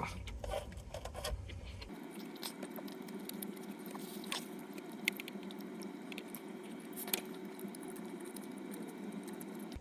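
Faint eating sounds: a person chewing food, with a few small clicks and ticks.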